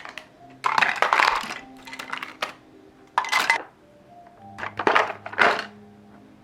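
Three short bursts of clatter, like objects being handled or set down, about a second in, about three seconds in and near five seconds in, over soft background music.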